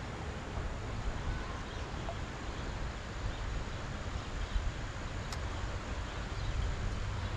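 Outdoor ambience dominated by a steady low rumble of wind on the microphone, with one faint sharp click about five seconds in.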